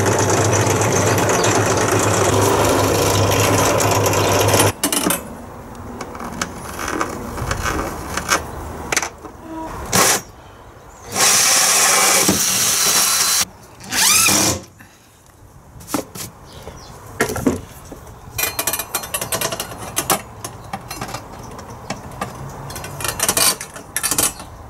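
Bench pillar drill running a hole saw through a metal plate on a wooden block, a loud steady drone with a low hum that stops about five seconds in. Then short bursts of a cordless drill with a hole saw cutting through the floor, with scattered clicks and knocks in between.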